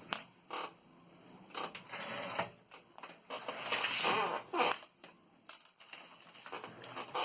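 Remington 16 manual desktop typewriter being typed on: irregular mechanical clacks of the typebars striking, in uneven runs with short pauses.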